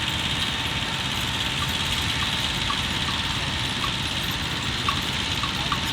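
A steady, engine-like rumble runs on without change. From about a second and a half in, faint short chirps sound roughly every half second.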